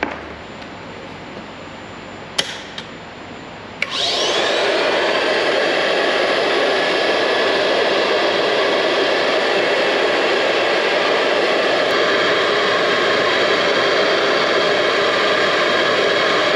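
1928 Hoover Model 543 upright vacuum's single-speed AC/DC commutator motor switched on about four seconds in: a click, a whine rising as the motor spins up, then a steady loud running noise. A few sharp clicks come before it.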